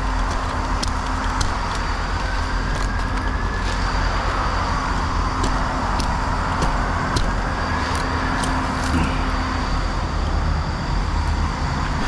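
Steady road traffic noise with vehicles passing and a low engine rumble underneath.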